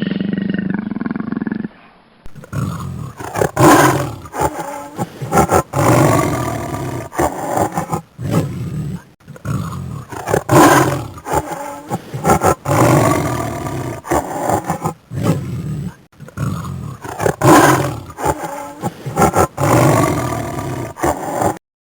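A big cat roaring and growling in repeated deep, loud calls, each lasting a second or more with short breaks between them. A different animal call cuts off abruptly in the first two seconds, and the roaring begins just after.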